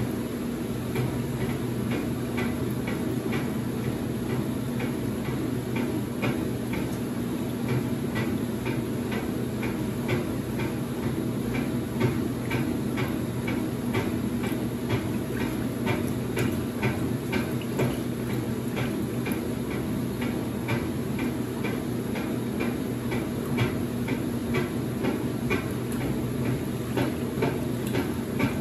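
Late-1970s Maytag A806 washing machine running: a steady motor hum with a rapid, even ticking, about two to three ticks a second.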